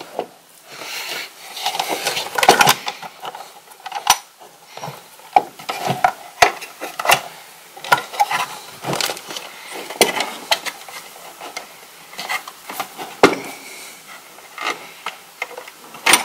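Hands forcing stiff electrical wires into the screw terminals of a plastic surge-protector enclosure: irregular clicks, taps and knocks of wire, metal and plastic, with rustling handling noise in between and a few sharper knocks.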